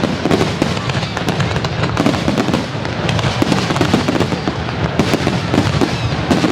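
Fireworks display: a dense, continuous barrage of crackling and popping bursts with no let-up.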